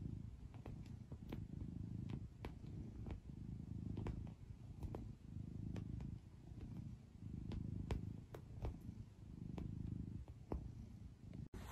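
Domestic cat purring, a low steady rumble that swells and fades with each breath, about once a second.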